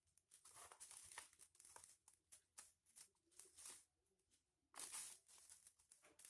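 Faint crinkling and rustling of foil-covered paper as it is handled and folded: a run of short, irregular rustles with a louder one about five seconds in.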